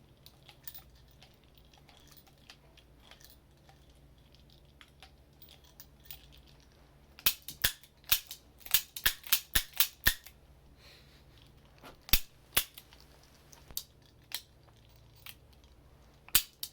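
Mechanical clicking of an old .38 Smith & Wesson revolver's action being worked: a quick run of about a dozen sharp clicks from about seven to ten seconds in, then a few single clicks spaced out.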